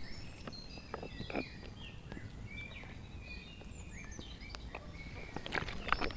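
Small birds singing, with many short chirps and whistles overlapping, and a few soft clicks and rustles near the end.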